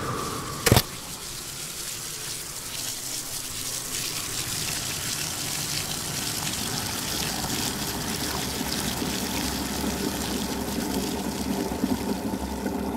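Water pouring in a steady stream from a tap into a filling basin, with a single sharp click under a second in.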